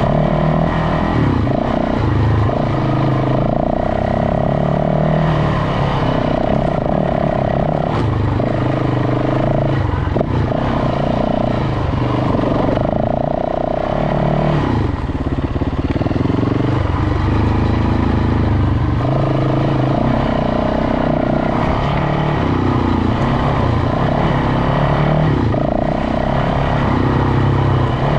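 Off-road motorcycle engine running as the bike is ridden along a dirt trail, its pitch rising and falling every few seconds with throttle and gear changes.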